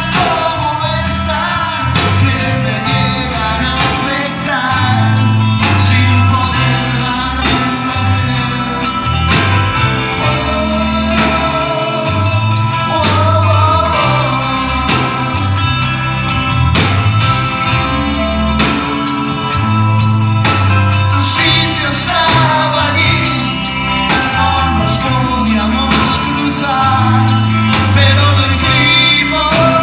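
Live rock band playing a song: drum kit keeping a steady beat, electric bass, electric guitars and keyboards, with a male lead vocal.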